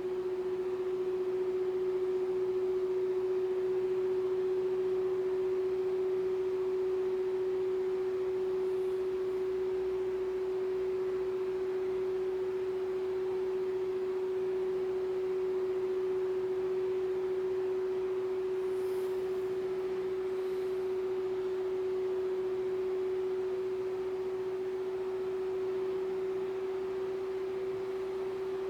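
1989 Galaxy 16-inch oscillating table fan (model 2151) running on low speed: a steady motor hum with a clear single tone over the rush of moving air.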